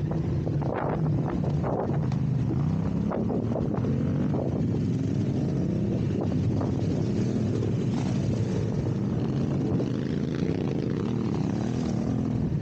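Adventure motorcycle engine running under way on a dirt track, its pitch rising and falling again and again as the rider rolls the throttle on and off and changes gear.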